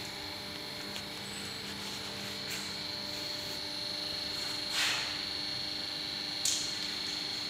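Electric hydraulic power pack of a drum lifter running steadily as the lift raises its carriage: a constant hum with a high whine, slightly louder from about halfway through. Three brief hisses occur, the loudest about two-thirds of the way in.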